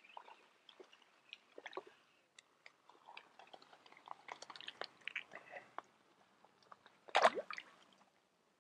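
Small fish, a roach, being reeled in on a feeder rod and swung to hand: scattered light clicks and small watery splashes, with one louder burst of noise about seven seconds in.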